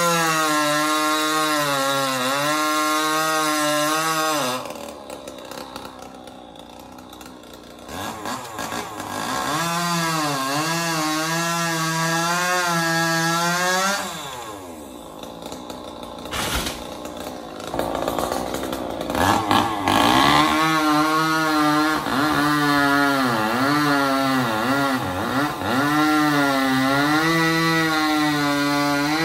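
Two-stroke chainsaw cutting rain tree (trembesi) limbs at full throttle, its pitch sagging and wavering under load. It drops back to idle twice, from about five to eight seconds in and from about fourteen to eighteen seconds in, then revs up again and cuts steadily to the end.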